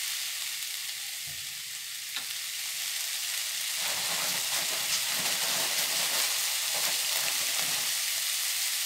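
Goat intestine pieces with onion-tomato masala sizzling in oil in a metal kadai, with a steel ladle stirring and scraping through them. The stirring grows louder and busier about four seconds in.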